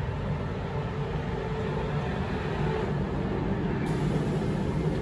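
Southeastern Class 395 Javelin electric train moving slowly along the platform past the listener, giving a steady running noise of wheels and motors.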